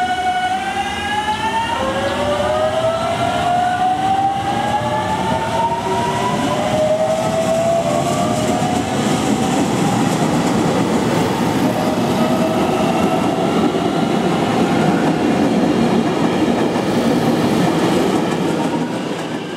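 JR Kyushu 813 series electric train accelerating away, its traction motors whining in several tones that rise in pitch together, over growing rumble and clatter of wheels on the track.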